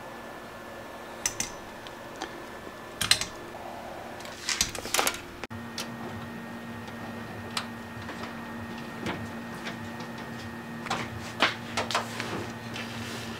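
Light clicks, taps and rustles of hands handling and routing electrical wiring, scattered irregularly, over a faint steady hum.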